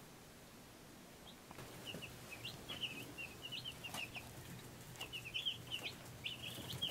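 Cornish Cross broiler chicks peeping: many short, high chirps overlapping, beginning about a second and a half in, over a faint low hum.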